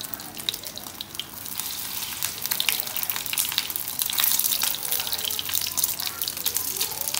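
Vegetarian chả patties sizzling in hot oil in a frying pan, a steady hiss full of small crackling pops that grows louder about two seconds in.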